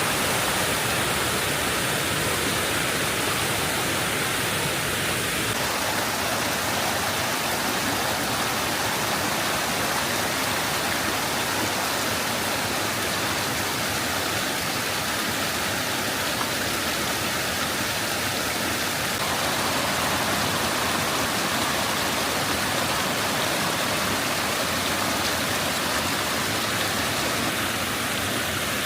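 Waterfall: a steady, even rush of falling water, its tone shifting slightly about five seconds in and again near twenty.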